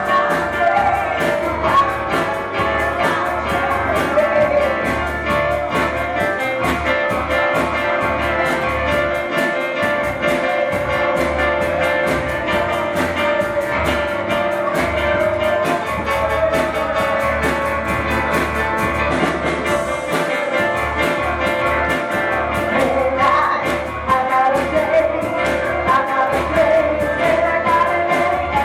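Church music with singing: a band with a steady beat and sustained keyboard or organ chords under voices.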